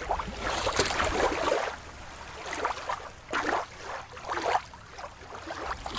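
Shallow river water lapping and splashing at the shore, with wind rumble on the microphone. About a second and a half in it cuts to a quieter stretch of water noise that comes and goes in swells.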